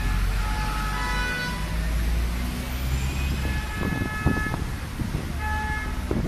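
Congested city street traffic: vehicle horns honk three times in long blasts over the low rumble of engines, a city bus among them.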